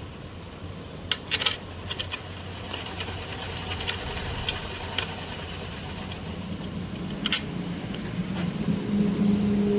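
Clicks and light taps of small metal parts and tools being handled while a ceiling fan motor is put back together, over a low steady hum. The loudest clicks come about a second and a half in and again a little past seven seconds, and a steadier low drone builds near the end.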